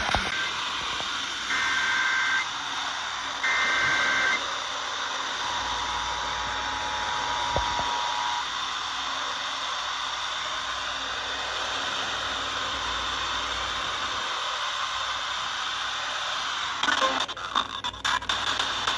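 Emergency Alert System signal over a hissing radio channel. Two SAME data header bursts (buzzing, warbling digital tones) come about two seconds apart, followed about five seconds in by a three-second two-tone attention signal. Steady static hiss runs throughout, with a few crackles near the end.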